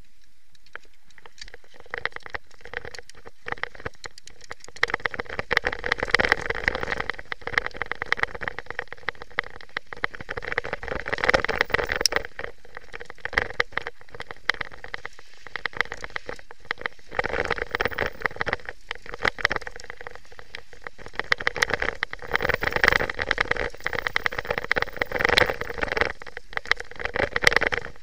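Downhill mountain bike clattering over a rough dirt trail: a dense, irregular rattle of knocks from the chain, fork and frame over bumps, mixed with tyre noise. It starts a second or two in and grows louder as the bike picks up speed.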